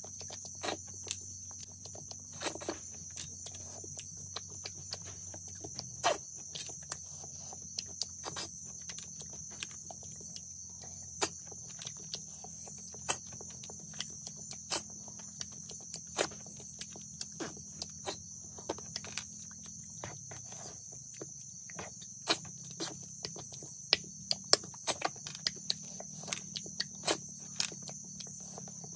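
Cooked river snails sucked out of their shells by mouth: irregular sharp sucking clicks and slurps, with the shells clicking as they are handled. A steady high chirring of crickets runs behind.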